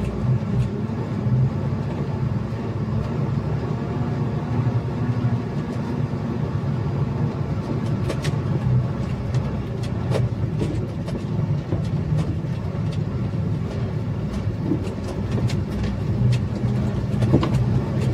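Truck engine running steadily as the truck drives over a rough, muddy dirt track, heard from inside the cab, with scattered clicks and knocks from the cab and the road.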